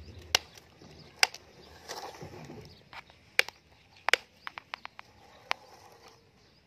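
Hard plastic clicks and knocks from a toy excavator's arm and bucket, worked by hand to scoop sand and tip it into a plastic toy dump truck. There are a few sharp single knocks, then a quick run of small clicks a little past the middle.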